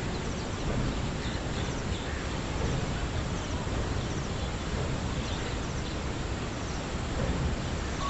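Outdoor ambience: a steady background noise, with birds chirping in short, high bursts roughly once a second.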